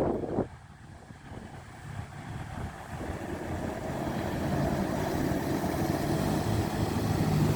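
A four-wheel-drive vehicle's engine running. It grows steadily louder from about three seconds in as the vehicle comes on through the river crossing.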